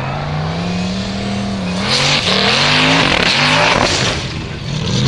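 Formula Offroad racing buggy's engine revving hard, its pitch climbing in repeated surges. A loud rushing noise rides over it for about two seconds in the middle, and the engine revs up again near the end.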